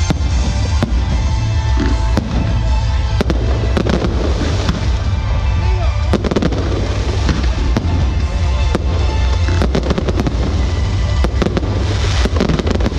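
Aerial fireworks going off in a rapid volley: many sharp bangs and crackles in quick succession over a continuous low rumble.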